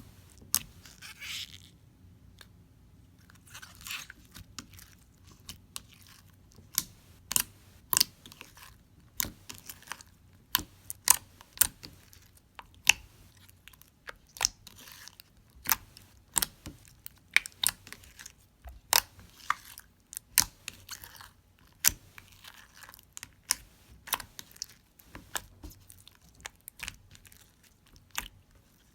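Clear slime being squeezed and poked by hand, giving sharp, irregular clicks and pops from trapped air, one or two a second.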